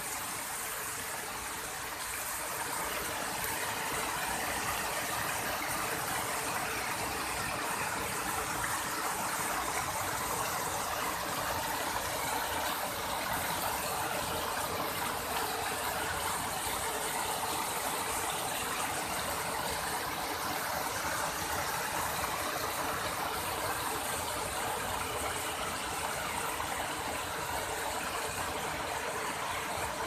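Steady rush of water cascading over rock ledges and into pools at a waterfall.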